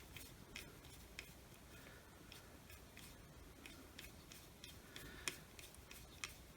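Faint, scattered small clicks and taps of wire connectors and plastic parts being handled while a circular saw's trigger switch is rewired.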